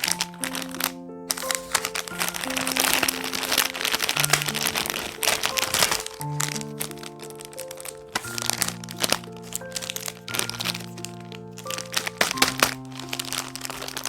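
Candy and chocolate wrappers crinkling and crackling as they are handled and torn open, over background music of slow held notes. The crinkling is densest for a few seconds near the start.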